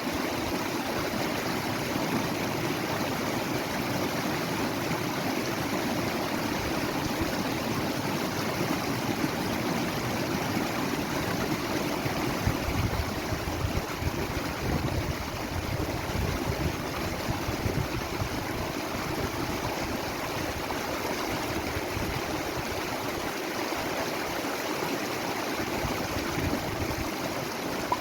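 Running water of a stream, a steady unbroken rush.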